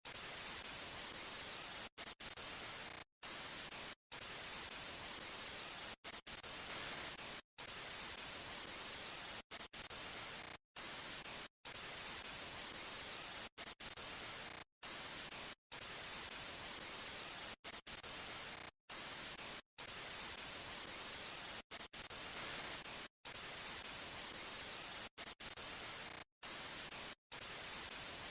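Steady hiss of static, like white noise, broken by many brief cuts to silence about once a second.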